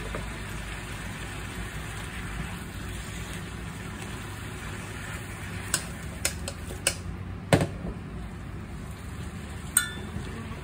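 Choi sum sizzling steadily as it is stir-fried in a pan. A spatula stirs through the greens, knocking sharply against the pan about five times in the second half.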